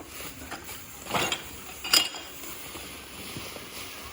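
Handling noise as a shipped car headlight with shattered glass is handled, with two sharp clinks about a second and two seconds in, the second ringing briefly like glass.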